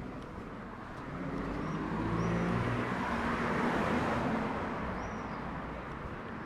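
A motor vehicle passing close by on a city street: its engine hum and tyre noise swell to a peak about halfway through and then fade away.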